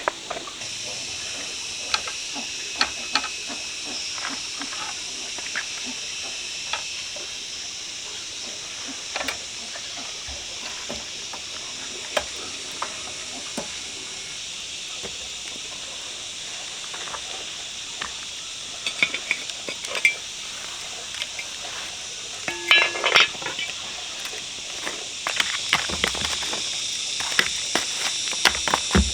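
Steady high-pitched insect chorus, with scattered clicks and clinks over it, a cluster of them about three quarters of the way through and more near the end.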